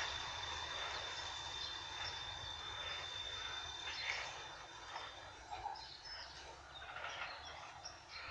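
A tram running away along the track, its rolling noise and a steady high whine fading out over the first few seconds. Small birds chirp in the second half.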